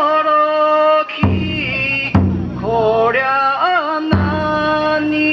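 Bon odori ondo: a lead singer's long, wavering held notes over a taiko drum, struck three times at uneven intervals.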